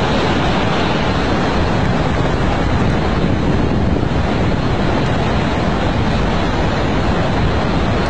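Tsunami floodwater rushing and churning in a loud, steady wash of noise, with wind buffeting the microphone.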